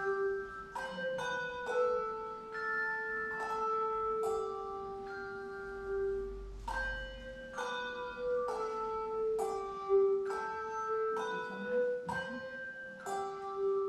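Handbells played by three ringers: struck notes and chords ring and overlap in a slow melody, a new strike about every half second to a second.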